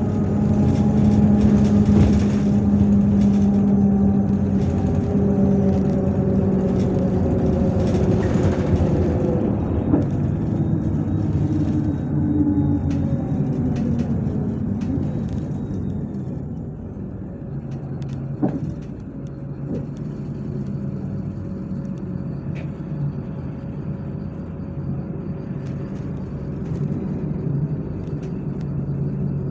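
Inside a MAZ-103 city bus: the engine and drivetrain whine falls steadily in pitch as the bus slows over the first half. It then runs quieter and steady, with a single sharp click partway through, and the whine begins to rise again near the end as it pulls away.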